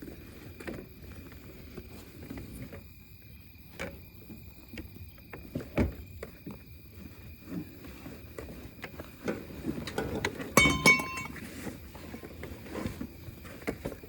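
Handling and rustling noises with scattered light knocks, and a brief metallic clinking ring about ten and a half seconds in. Faint steady insect trills run underneath.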